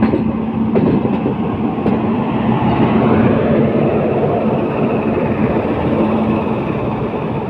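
Train running on the rails: a steady rumble with a steady low hum, and a few sharp clicks in the first two seconds.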